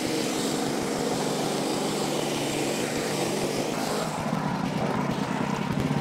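Wood-Mizer LX55 portable sawmill's engine running steadily. About four seconds in, the high hiss falls away and the engine settles into a lower, steadier note.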